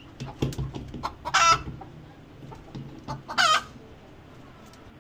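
Chickens calling: two loud, short calls about two seconds apart, with softer clucking between them.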